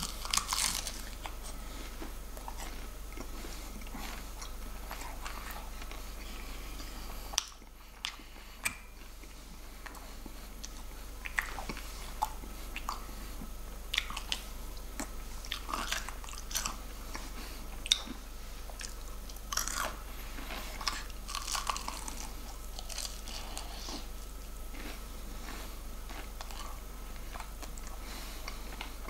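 Person biting into and chewing KFC fried chicken, the crispy coating crunching in irregular crackles and clicks.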